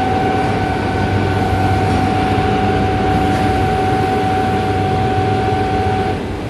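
Kannegiesser water-extraction press of a CBW tunnel washer line running as it presses water out of a washed batch of linen: a steady low hum under a steady whine. The whine stops about six seconds in.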